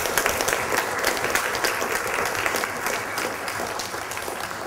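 Lecture-hall audience applauding: sustained, even clapping that slowly tapers off near the end.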